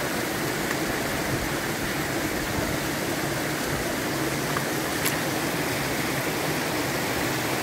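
Steady rushing of running water from a stream, with one faint click about five seconds in.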